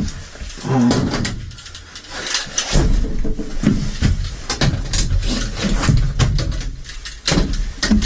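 Repeated banging and rattling of a metal mesh cage door in a police van's cell as a man hits and kicks it, with a man's shouts between the blows.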